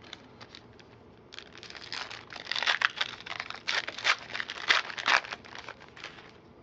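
A trading-card pack's foil wrapper crinkling as it is torn open. A few light clicks come first, then about four seconds of dense crackling.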